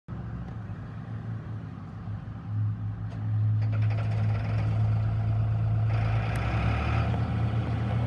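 New Holland LS180 skid steer loader's diesel engine running at a steady pitch, growing louder about three seconds in.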